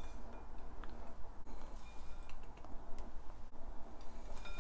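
Coarsely ground nuts and chopped pistachios poured into a cut-glass bowl: a quiet rustle with a few light clicks.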